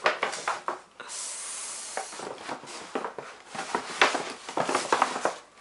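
Plastic bag being handled and crumpled: a steady hiss about a second in, then quick crinkling and crackling.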